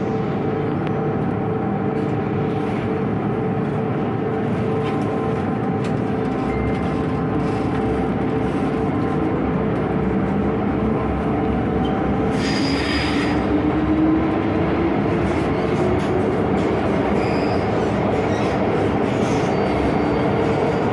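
An MTR M-Train heard from inside the carriage as it pulls out of a station: steady running noise from the wheels and motors. About twelve seconds in there is a brief high hiss, and from then on the motor whine rises in pitch as the train picks up speed.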